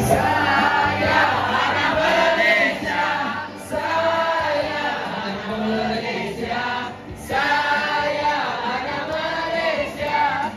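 A group of men and women singing a patriotic Malay song together, with brief breaks between lines about three and a half and seven seconds in.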